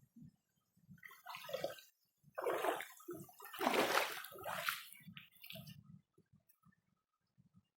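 Creek water splashing and sloshing over rocks in irregular surges, loudest about four seconds in, dying away near the end, over faint low thuds.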